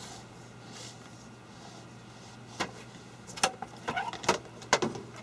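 Aprilaire 413 filter media being slid out of its air cleaner cabinet: a single sharp click a little over halfway through, then a quick series of short knocks and taps as the filter comes free.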